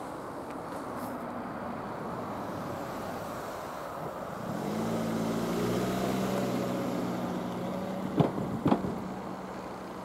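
A motor vehicle's engine hum comes in about halfway through, swelling and rising slightly in pitch, then holding steady and slowly fading. Two sharp knocks sound close together near the end.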